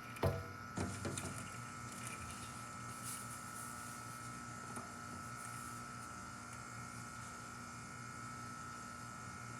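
Ruud Achiever Endeavor line air-conditioner condenser with a scroll compressor running: a steady hum with a thin high whine over it, and two brief knocks in the first second. The unit is running almost constantly in cold weather, which the filmer says can damage the compressor.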